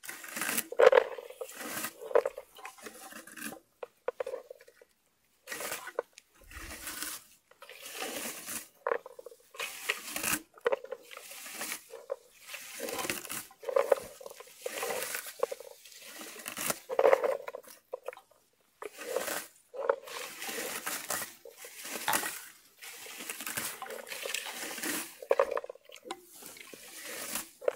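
Wooden berry comb with metal tines raked through bilberry bushes, about one stroke a second with short pauses: leaves rustling and twigs scraping as the tines strip berries into the box.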